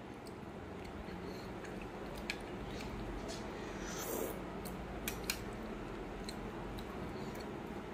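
A few faint, scattered clicks and taps of cutlery or fingers against a plate during a meal, over a steady low room hiss.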